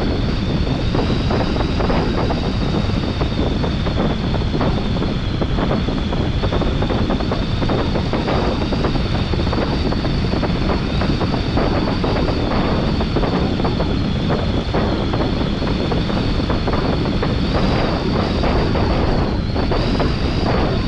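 Airflow rushing over a paraglider pilot's camera microphone in flight, a loud, steady buffeting noise, with a thin, steady high tone held underneath it.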